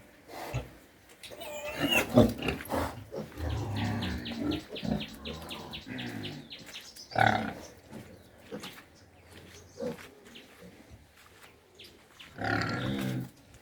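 Pigs squealing and grunting: sharp squeals about two seconds in and again about seven seconds in, a fast run of grunts in between, and a longer squeal near the end.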